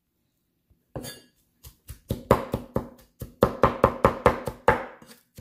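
Chef's knife chopping garlic and shallot on a wooden cutting board: a run of quick knocks, each with a short ring from the board. The knocks start about a second in and settle into roughly five a second.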